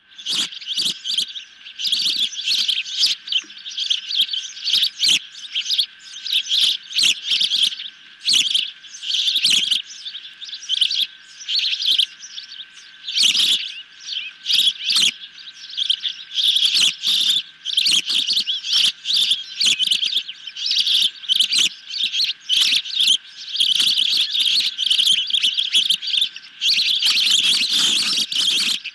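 Juvenile ospreys calling from the nest: a rapid, continuous series of high, piercing chirps and whistles with only brief pauses.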